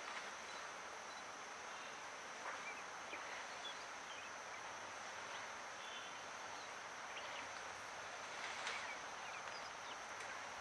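Forest ambience: a steady high-pitched insect drone over an even hiss, with a few faint short chirps scattered through it.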